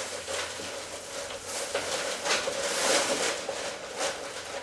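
Nylon fabric of a pop-up spray tanning tent rustling and swishing as it is handled and moved, in a string of irregular swishes that fade out near the end.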